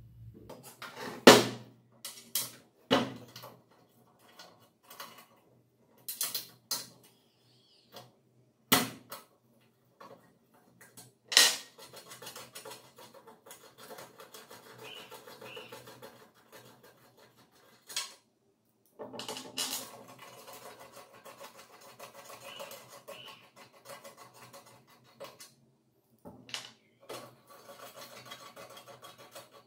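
Metal hand tools and small steel parts knocking and clinking against a wooden tabletop, several sharp clanks in the first dozen seconds. Then long stretches of scratching and rubbing as bolts are loosened and removed from the grinder stand's base plate with a spanner.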